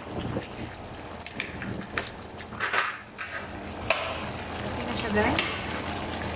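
Creamy chicken curry sizzling in a metal pot as a wooden spoon stirs it, with a few sharp knocks of spoon and lid against the pot.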